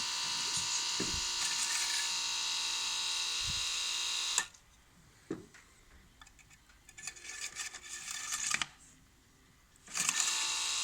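A steady high buzzing whine like a small electric motor. It stops abruptly about four seconds in, leaving a few faint clicks and handling noises, then starts again near the end.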